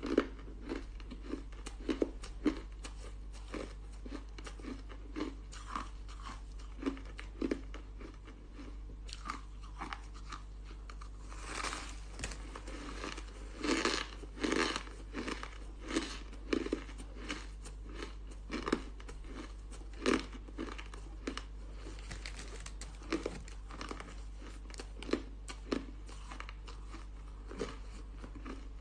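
Crunching and chewing of a crumbly chunk of frozen ice: irregular crisp bites and crunches throughout, busiest about halfway through, over a steady low hum.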